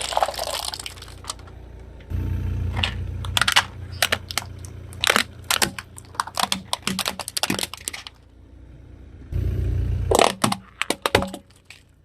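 Car tyre rolling slowly over brittle objects and snapping them: a low engine rumble under a rapid run of sharp cracks, then a pause and a second shorter run of cracks.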